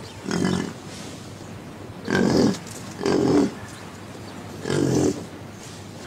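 Five short, loud animal calls, each lasting about half a second and coming one to two seconds apart.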